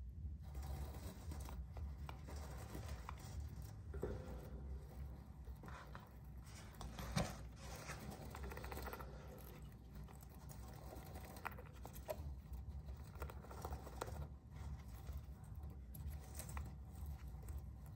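Hamster scrabbling and picking at a painted wooden corner with its claws and teeth: fast, irregular little scratches and clicks, with one sharper click about seven seconds in.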